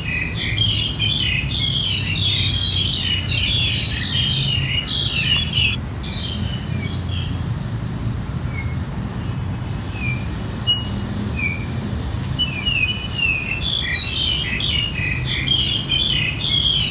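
A chorus of many small birds chirping and twittering, dense at first, thinning to scattered calls for several seconds in the middle, then dense again near the end, over a steady low hum.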